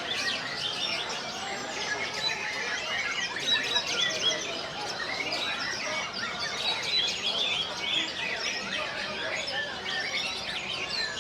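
Many caged white-rumped shamas (murai batu) singing at once, a dense overlapping chorus of varied whistles and chirps.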